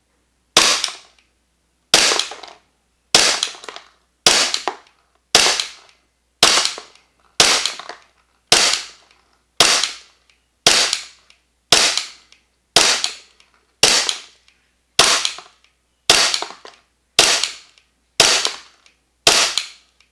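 VFC/Umarex Glock 45 gas blowback airsoft pistol firing semi-automatic, about eighteen evenly spaced shots at roughly one a second, each a sharp crack of gas and slide blowback. The pistol is being emptied on a measured gas fill to test a modified cylinder bulb with the factory recoil spring.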